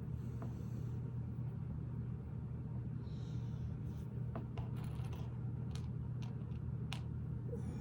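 Faint clicks and light clatter of plastic Lego pieces being handled and pressed together, a few scattered taps, most of them in the second half, over a steady low hum.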